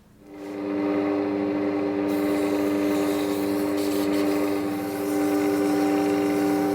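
Lathe motor starting up, rising to speed over about a second and then running with a steady hum, turning a resin-cast light-bulb blank; about two seconds in, a rough hiss joins it.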